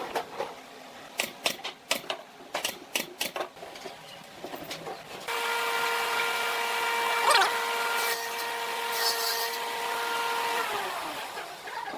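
A run of sharp taps and clicks, then a small electric motor, likely a workshop power tool, runs at a steady pitch for about five seconds and winds down near the end.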